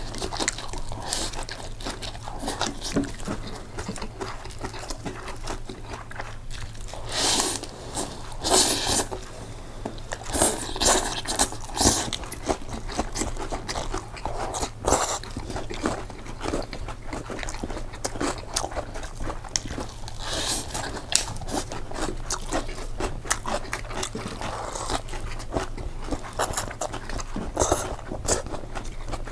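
A person eating pasta close to the microphone: chewing and crunching, with many small mouth clicks and a few louder bursts in the middle.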